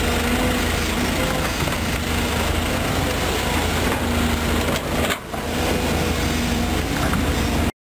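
Volvo EC210B excavator's diesel engine running steadily under working load as the bucket moves dirt, with a brief dip about five seconds in; the sound cuts off abruptly near the end.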